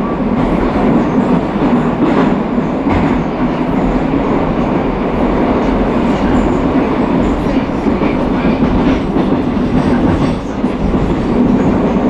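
Moscow Metro train running through the tunnel between stations, heard from inside the carriage: a loud, steady rumble of wheels on rail with a constant low hum, broken by occasional clacks.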